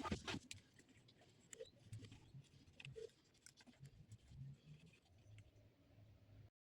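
Faint light clicks and scratchy handling noises, with one sharp click right at the start; the sound cuts off to silence shortly before the end.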